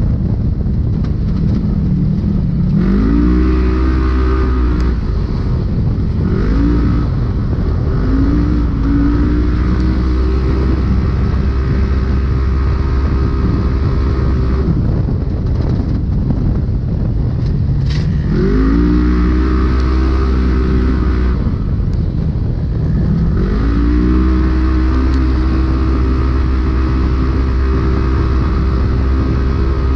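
Polaris RZR race UTV engine heard from inside the car. It revs up and holds steady at high revs, again and again: it climbs about three seconds in, around six and eight seconds, and again near eighteen and twenty-three seconds, and drops back around fifteen and twenty-one seconds. A steady noisy rush runs underneath, with one sharp knock about eighteen seconds in.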